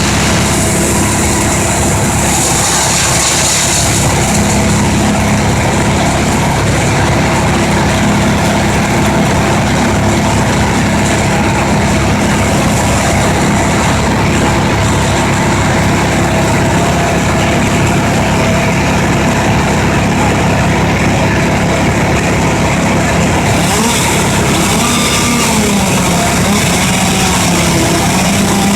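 Wood chipper's engine running steadily at a constant loud level, with a low hum that wavers down and back up near the end.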